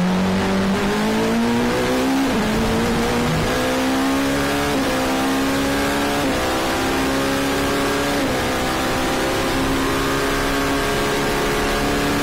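Oreca LMP2 prototype's Gibson V8 heard from inside the cockpit, accelerating hard. Its pitch climbs, with about four small dips a second or two apart as it is shifted up through the gears.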